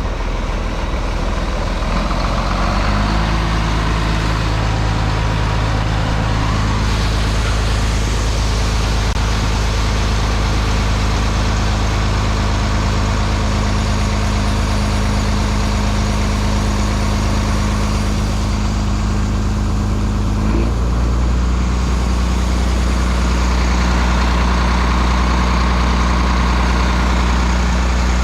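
Combine engine running steadily. It throttles up about two to three seconds in, then settles slightly lower in pitch and heavier about twenty seconds in.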